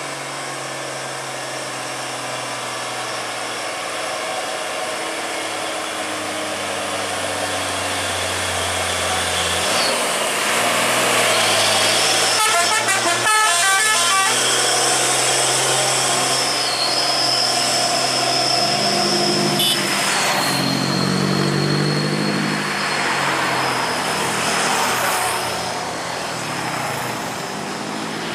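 Diesel engine of a loaded Hino 500 truck running steadily as it draws close and passes, loudest about halfway through. In the second half a vehicle horn sounds.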